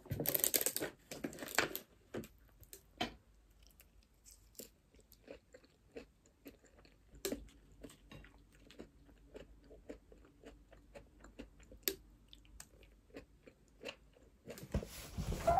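Water poured from a bottle into a glass mug, then a person eating salad noodles with chopsticks: quiet chewing and crunching with small scattered clicks.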